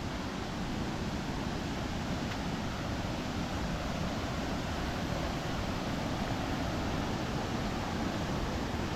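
Steady rush of water from a waterfall and its rapids.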